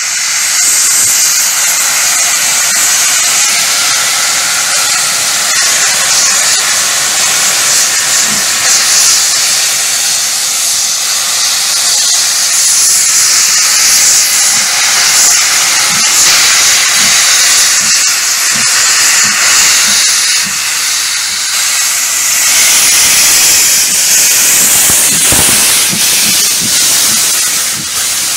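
LMS Black Five 4-6-0 steam locomotive 45212 arriving slowly with its cylinder drain cocks open, giving a loud, steady hiss of venting steam that starts suddenly.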